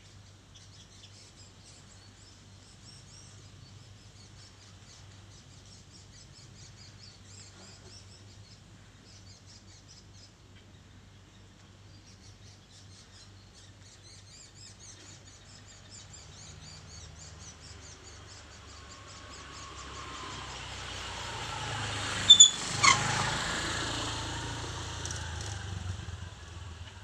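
Faint bird chirping over a low steady hum. Then a vehicle passes, growing louder from about two-thirds of the way in with a falling pitch as it goes by. Two short, sharp, loud high sounds come at its loudest point, and it fades near the end.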